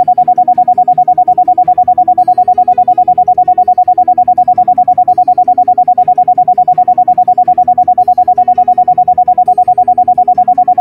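An electronic sound-therapy tone: a single loud steady high tone pulsing rapidly and evenly on and off, over soft background music.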